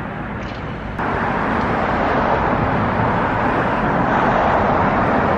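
Steady street traffic noise from passing cars, with no distinct tones. It jumps louder about a second in.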